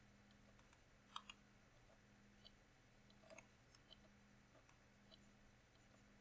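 Near silence with a few faint computer mouse clicks, a pair about a second in and another pair around three and a half seconds, over a faint low hum.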